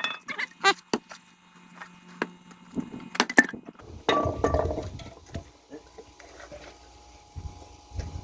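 Firewood being split with an axe: a series of short, sharp knocks of wood, and a louder, longer crack about four seconds in.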